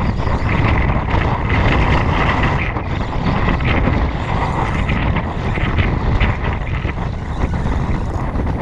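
Wind buffeting an action camera's microphone: a steady, loud rumbling noise.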